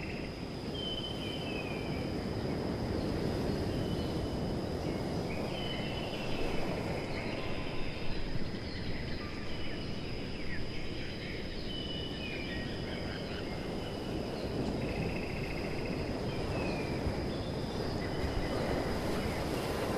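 Outdoor ambience: a steady low rushing noise, a thin high insect drone, and short bird whistles every second or two.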